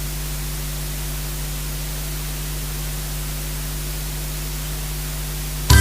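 Steady hiss with a low electrical hum, the noise floor of a karaoke recording. Near the end the backing music starts abruptly with a drum hit.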